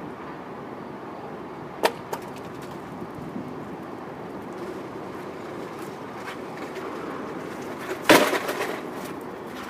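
Wood being struck outdoors: a sharp knock about two seconds in with a lighter one just after, then a loud wooden crash near the end followed by about a second of clattering.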